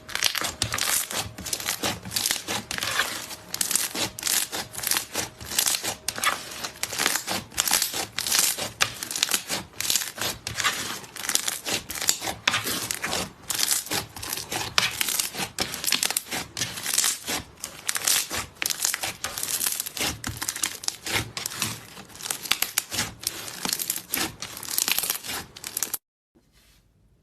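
Slime being worked by hand, making a dense, irregular crackling and crinkling that stops abruptly near the end.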